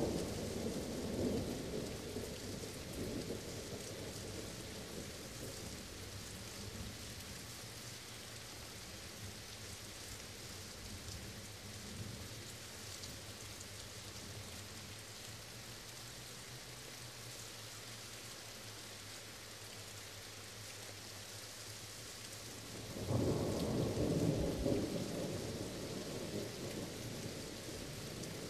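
Steady rain with rolling thunder: a rumble fades away over the first few seconds, then a new roll of thunder breaks in suddenly about 23 seconds in and slowly dies down.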